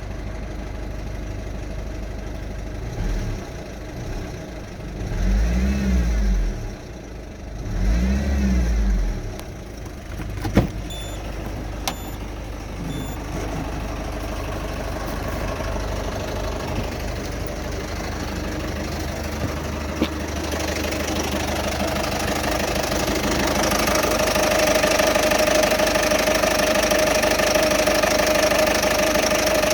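Citroën Berlingo's 1.6 HDi four-cylinder turbodiesel running with a noisy, rough idle whose cause is unknown, the owner finding no engine fault codes. It is briefly revved twice near the start, with a few sharp clicks after, and grows louder with a steady tone in the second half.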